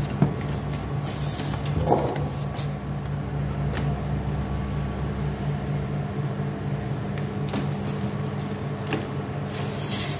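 Steady low machine hum with a fast pulsing beneath it, with occasional knocks and clicks of plastic punnets and boxes being handled. A louder knock comes just after the start and another about two seconds in.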